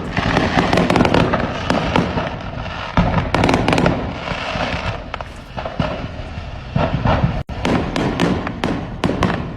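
Fireworks going off in rapid, overlapping succession: a dense, unbroken run of sharp bangs and crackling pops, the sound of a large store of fireworks igniting all at once.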